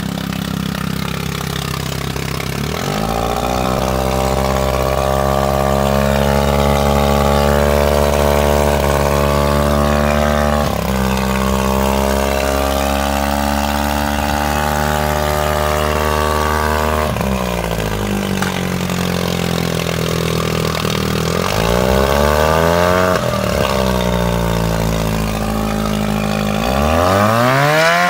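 1963 Montgomery Ward Sea King 5 hp two-stroke outboard motor running on a stand out of the water, cooling water spraying from the lower unit. It speeds up about three seconds in and holds a steady speed, then is throttled down and back up several times in the second half, speeding up again near the end.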